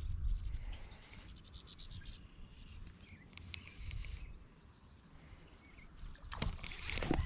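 Outdoor pond ambience: wind buffeting the microphone and faint chirping in the background, with a burst of louder rustling and water noise near the end.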